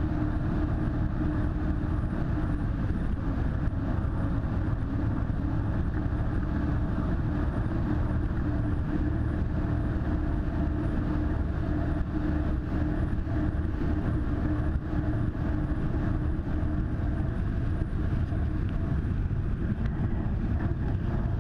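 Jetboat engine running steadily at cruising speed with rushing water and wind, muffled, with a steady hum.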